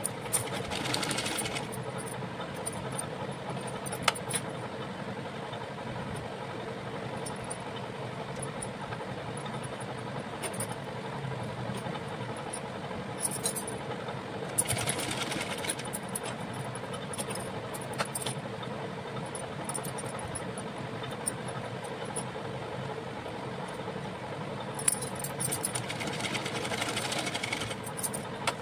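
Hirose sewing machine running steadily as it stitches through fabric. Bangles on the sewer's wrist jingle briefly a few times.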